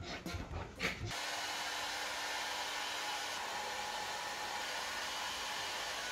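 Handheld hair dryer blowing steadily as it dries a Bichon Frisé's coat. It switches in abruptly about a second in.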